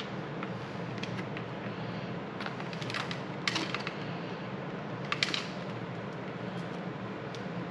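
Hands working inside a motorcycle helmet's padded liner, fitting an intercom microphone and its wire: scattered small clicks and rustles, a couple of sharper clicks about three and a half and five seconds in, over a steady low hum.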